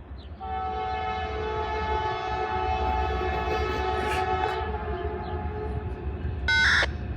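Locomotive NS 4845's Nathan K5LA five-chime air horn blowing one long chord for about six seconds, then a short, louder blast near the end, over a low rumble. The horn is described as terrible and atrocious.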